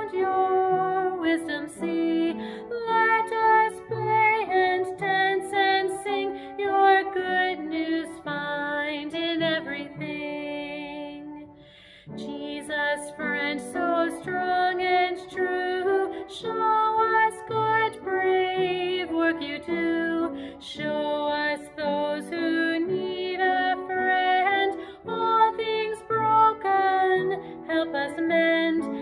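A woman singing a hymn, held notes in phrases, with one brief break about twelve seconds in.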